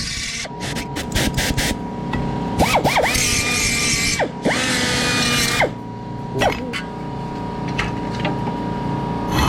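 A small electric power tool run twice in short bursts of about a second and a half, each time spinning up and winding back down, after a few sharp knocks.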